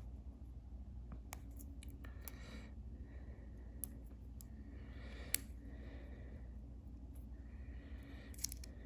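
Faint clicks and soft rustling from small parts being handled on a bench, over a low steady hum; one sharper click a little past halfway.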